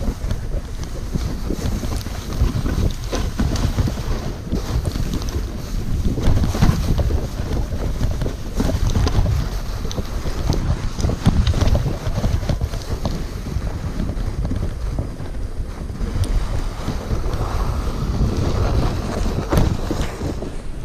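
Wind buffeting the microphone of a fast-moving toboggan on a snow run, over the hiss and scrape of its metal runners on packed snow, with scattered knocks from bumps in the track.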